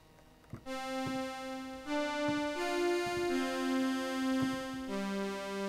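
MOS 6581 SID synthesiser chips playing sawtooth-wave chords shaped by an envelope into a string-like sound. The held notes start about three-quarters of a second in and change every second or so, with faint key clicks between the changes.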